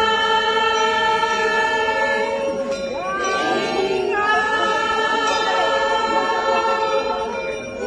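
A group of voices singing a devotional song in long held notes, moving to a new note about three seconds in.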